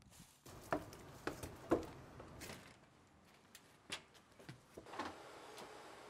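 Footsteps and a door being opened and shut: a string of scattered knocks and clicks, about seven in all.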